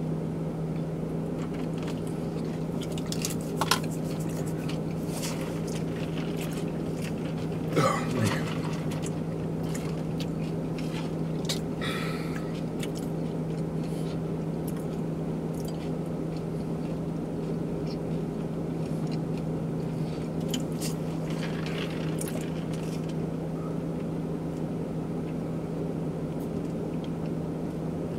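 Steady low hum inside a car's cabin, from the vehicle's running engine and fan, with a few small clicks and rustles scattered over it, the loudest about four and eight seconds in.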